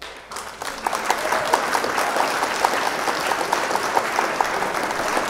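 An audience applauding, swelling up over the first second and then holding steady.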